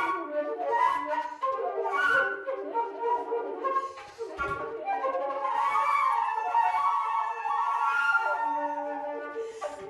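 Two concert flutes playing a duet, their two melodic lines interweaving.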